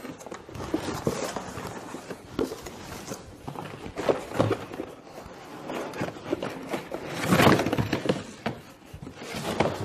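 Cardboard box flaps scraping and crackling as a wooden scale-model bus is slid out of the box, with a few sharp knocks; loudest about seven seconds in.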